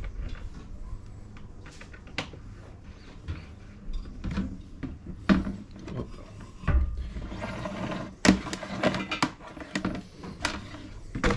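Black plastic waterproof hard case being handled: scattered clicks and knocks as its lid is opened and a cable is fed inside, the loudest knock about eight seconds in.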